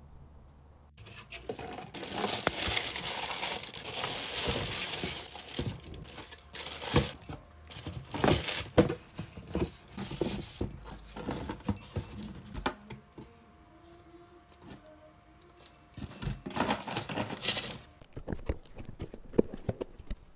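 Hands unpacking boxed goods: rustling and crinkling of paper and plastic packaging with irregular clicks and taps of cardboard. It is loudest from about two to eleven seconds in and again around seventeen seconds, with a quieter stretch between.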